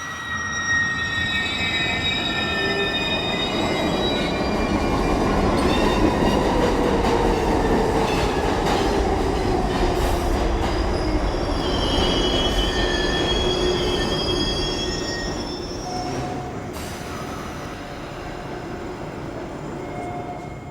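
Sound effect of metal squealing and screeching over a steady low rumble, like train wheels grinding on rails. High squeals come and go, and a lower tone slowly slides downward through the middle.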